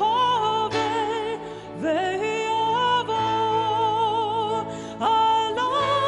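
Live worship music: a band playing while singers hold long, wavering notes, each new phrase sliding up into its note.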